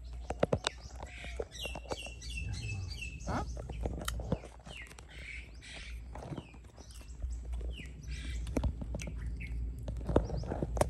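Birds chirping in short runs of quick, high, falling notes, with a few sharp crunches of fresh fruit being bitten.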